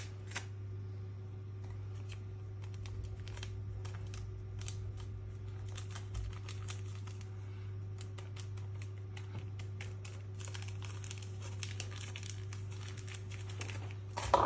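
A small paper sachet being handled, torn and shaken out over a mixing bowl: light crinkling and scattered soft ticks, busiest about two thirds of the way through, over a steady low hum.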